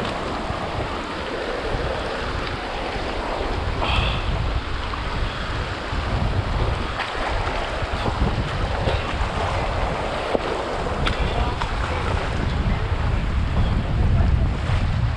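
Wind buffeting the microphone in uneven gusts over a steady rushing noise, with a few faint clicks.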